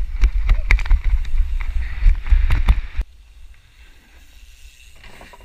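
Mountain bike riding down a dirt trail: wind buffeting the microphone, tyre rumble and the bike's rattling clicks over the rough ground. About three seconds in it cuts off abruptly to a quiet background.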